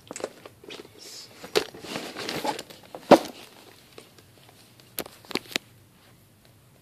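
Handling noise close to a phone's microphone: rustling and crinkling with several sharp knocks, the loudest about three seconds in and a quick cluster around five seconds.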